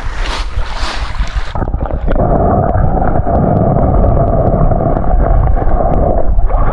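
Wind buffeting the microphone over open water, then from about two seconds in the steady drone of an inflatable boat's outboard motor running under way, with wind rumble beneath it.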